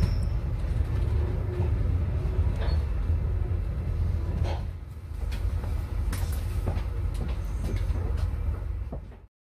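Low rumble of a train heard from inside the carriage as it rolls into a station, with scattered clacks from the wheels on the track and a few brief high squeals. The sound cuts off abruptly near the end.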